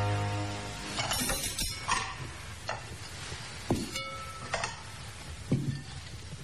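Dishes and cutlery clinking as a plate is set down on a table: scattered sharp knocks and clinks, with one short ringing clink about four seconds in. A held music chord fades out at the start.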